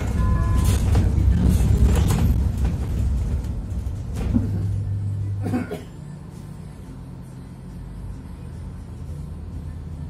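Small CNG minibus heard from inside the cabin, its natural-gas engine and drivetrain running with rattles as it moves. About six seconds in the noise drops suddenly to a quieter steady idle as the bus comes to a halt at a stop.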